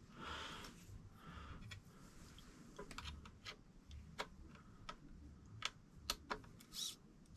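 Faint, scattered clicks and ticks of small parts and tools being handled during work on an RC truck's diff-locker servo, with a short sound that sweeps in pitch near the end.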